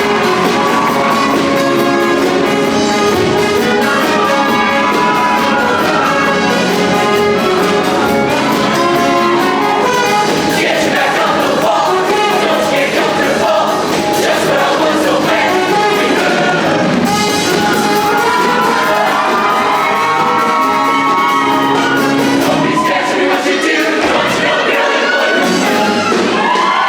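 Show choir singing over a live band with prominent brass.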